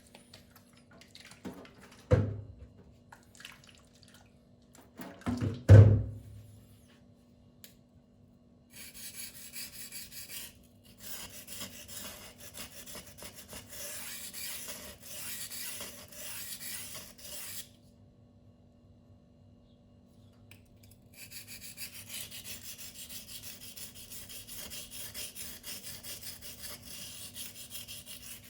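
Steel knife blade being stroked back and forth across a silicon carbide sharpening stone, an even rhythmic scraping in two long runs with a pause between. Before that, two dull thumps, the second the louder.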